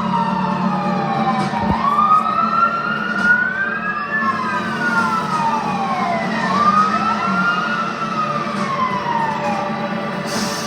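Several fire-apparatus sirens wailing together, their slow rising and falling glides overlapping out of step, over a low steady rumble.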